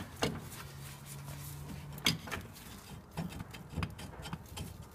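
Scattered metal knocks and clicks as a Daewoo Matiz's front steering knuckle and hub are worked loose and pulled away from the strut bracket, the sharpest about two seconds in.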